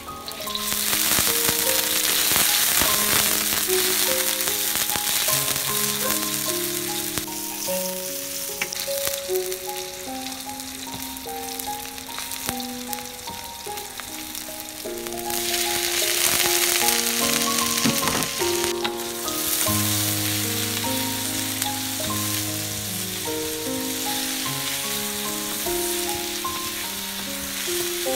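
Hot oil sizzling in a steel wok as chopped onion fries, stirred with a wooden spatula. The sizzle swells louder again about halfway through. Soft melodic background music plays under it.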